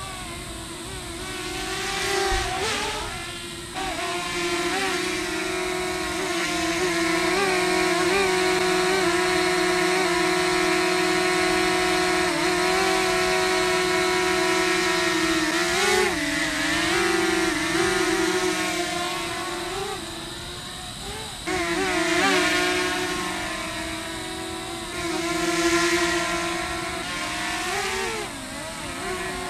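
DJI Mini 2 SE quadcopter hovering close by, its propellers giving a steady buzzing whine. The pitch and loudness rise and dip several times in the second half as the drone manoeuvres.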